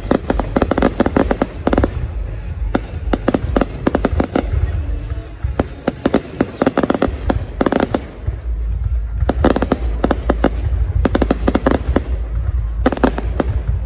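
Aerial fireworks bursting overhead: rapid volleys of sharp crackling pops in clusters, with short gaps between them, over a steady low rumble.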